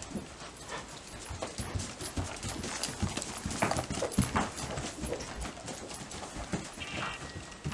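Hoofbeats of a Spotted Saddle Horse filly gaiting under a rider on a dirt-and-hay barn floor, soft irregular thuds that are loudest as she passes close about four seconds in.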